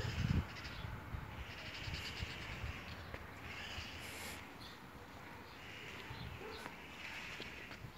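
Faint outdoor ambience with distant chirping.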